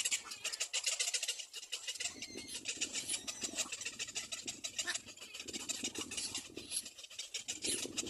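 Little black cormorant chicks calling at the nest, a rapid high squeaky chatter. From about two seconds in, a lower, rougher sound joins.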